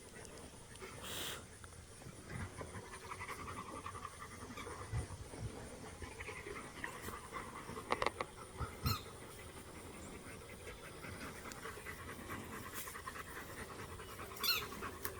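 St. Bernard puppy panting steadily in rapid breaths, with a few brief knocks and scuffs about a second in, around the middle and near the end.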